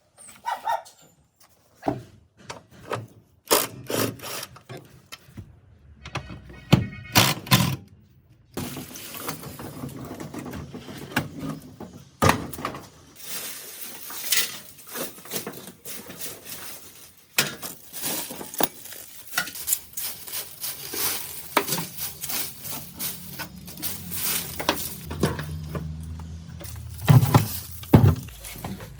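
A string of knocks and clicks, like hand work on parts. From about eight seconds in, a steady rough noise runs under the knocks.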